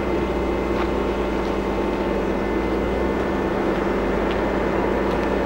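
Diesel engine of a mobile crane running steadily during a heavy lift, a constant drone with steady tones and no change in pitch.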